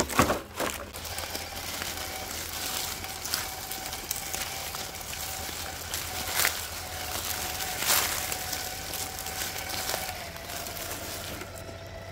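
Traxxas TRX-4 K10 1/10-scale RC crawler driving, its Hobbywing AXE brushless motor giving a faint steady whine that drops slightly in pitch near the end, over the crackle of tyres on dry leaves and gravel. Sharp knocks right at the start as the truck rolls over, and a couple of single clacks later on.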